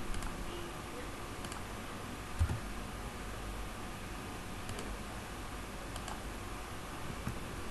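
A few faint computer mouse clicks, scattered and irregular, over a steady low hum. There is one soft low thump about two and a half seconds in.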